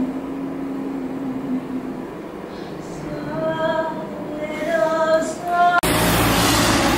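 A woman singing a slow melody, with a low held note beneath it at first. About six seconds in it cuts off sharply to the steady noise of street traffic.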